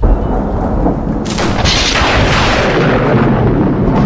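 Thunder from a close lightning strike: a sharp crack about a second in, followed by a heavy rumble that carries on.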